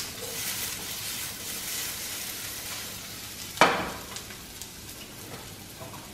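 Sliced onions sizzling in a frying pan as they are stirred, the hiss strongest in the first three seconds. A single sharp knock about three and a half seconds in.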